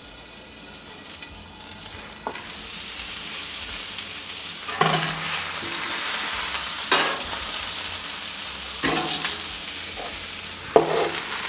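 Frozen broccoli with a little water sizzling and steaming on a hot Blackstone flat-top griddle. The hiss builds over the first few seconds, broken by four sharp knocks.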